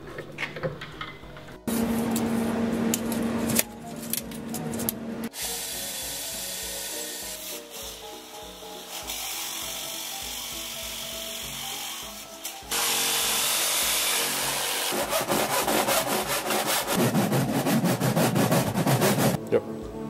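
Power tools working metal in a string of short cuts: a tool runs with a steady hum for a few seconds, then long stretches of harsh cutting and drilling noise that change abruptly several times, loudest near the end.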